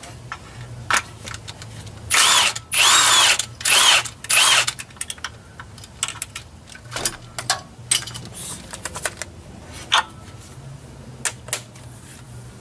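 Cordless impact wrench run in four short bursts, its motor whine rising and falling in each, loosening an 18 mm bolt on a Ford 5.4 3V engine's front. Scattered metallic clicks and taps of tool and bolt handling follow.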